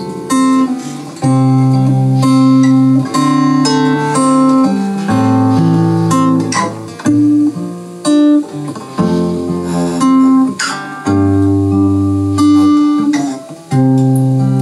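Instrumental passage on acoustic guitar with a neck-rack harmonica: held notes that start and stop sharply over the guitar's strummed chords and bass notes.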